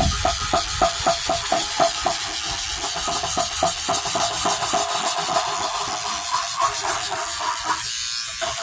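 Stiff toothbrush scrubbing soapy dirt off a plastic satellite dish in quick back-and-forth strokes, about five or six a second, over a steady hiss.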